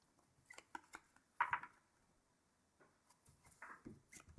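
Hockey trading cards being handled and flipped through: faint, scattered card clicks and short slides of card stock, with a slightly louder rustle about a second and a half in and a few more near the end.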